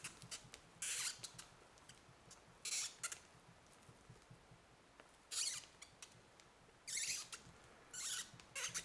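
Screw being twisted by hand screwdriver into the tight hole of a rubber suction cup, squeaking in about six short, high bursts as each push-and-twist forces the threads into the rubber.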